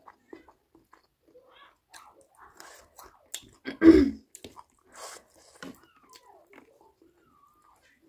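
Close-miked mukbang eating sounds: a person chewing chicken curry, with small wet clicks and smacks of the mouth. There is one louder, fuller mouth sound about four seconds in.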